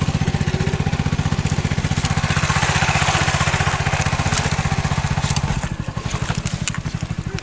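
Small single-cylinder boat engine running with a rapid, even pulse. It becomes quieter and thinner about two-thirds of the way through.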